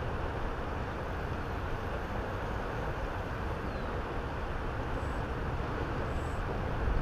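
Steady rushing noise of a flowing river's current running past the rocky bank, with a deep low rumble underneath.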